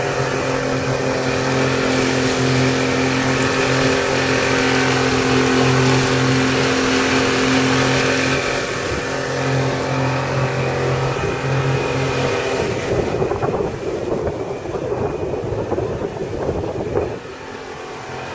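A passenger boat's engine running with a steady hum over the rush of wind and churning water. About two-thirds of the way through, the engine hum fades under a rough, uneven rushing noise, which drops away shortly before the end as the hum returns.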